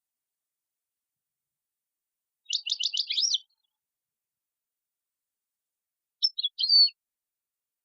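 A songbird singing two short phrases with a pause of about three seconds between them. The first is a fast run of about seven sharp high notes. The second is a shorter phrase of a few notes ending in a brief whistle.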